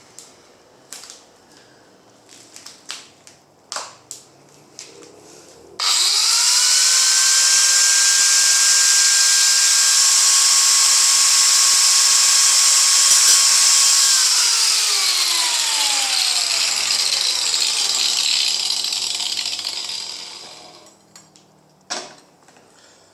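A small electric power tool, used to cut down bolts held in a mini vice, is switched on about six seconds in. It runs loud and steady at a fixed pitch with a strong high hiss for about eight seconds. It is then switched off and winds down, its pitch falling over several seconds. Light handling clicks come before it starts, and a single knock follows near the end.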